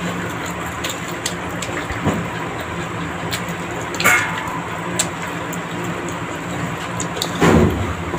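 Eating at a table: scattered small clicks of utensils on plates over a steady background hum, with two louder brief sounds about four and seven and a half seconds in.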